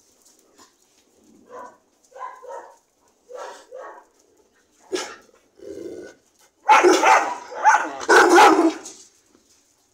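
Dogs barking: a few short barks, some in pairs, then a louder run of rapid barks in the last few seconds while the dogs play together.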